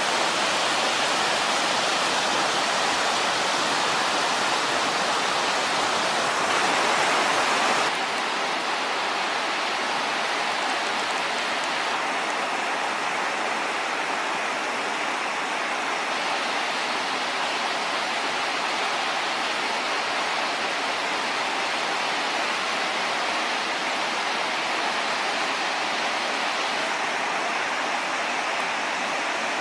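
A river waterfall rushing steadily: a constant, even sound of falling water. It is a little louder for a moment about seven seconds in, then slightly softer.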